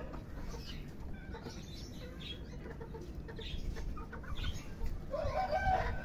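Ayam Cemani chickens clucking in short, scattered calls. Near the end a rooster starts to crow.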